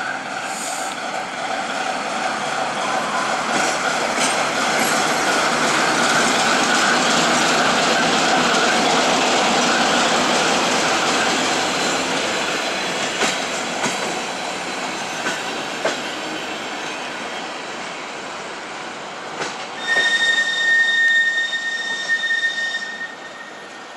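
Passenger coaches of a departing suburban train behind a ChME3 diesel shunter roll past on the rails: a broad rolling rumble that swells as the coaches pass close, then fades as the train pulls away, with a few sharp clicks. Near the end a high steady whistle sounds for about three seconds.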